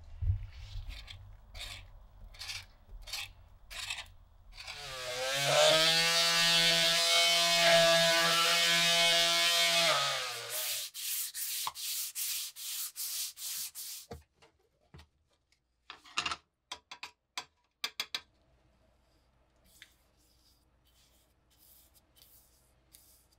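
A wooden axe handle being abraded: rhythmic rubbing strokes, then a small power tool motor spins up, rising in pitch, and runs steadily for about five seconds as the loudest sound. After it, quick hand-sanding strokes with a sanding block, about three a second, then a few light clicks and faint strokes near the end.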